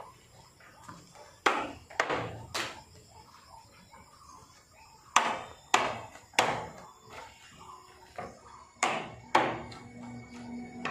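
Hammer blows on a wooden frame: sharp knocks in small groups of two or three, a few seconds apart.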